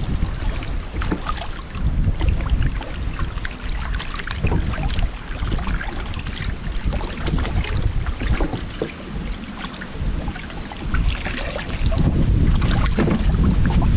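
Wooden paddle stirring and splashing river water beside a small wooden boat, with irregular water splashes. Wind rumbles on the microphone throughout and is strongest near the end.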